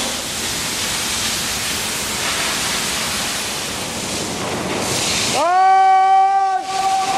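High-pressure water jet spraying from a hand-held lance, a steady hiss. About five seconds in, the hiss drops away and a loud whistling tone slides up and holds, then carries on more quietly.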